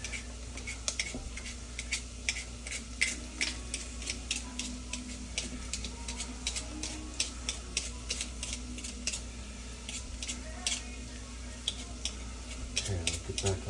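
Food sautéing in olive oil in a pan, sizzling with scattered crackles and pops a few times a second.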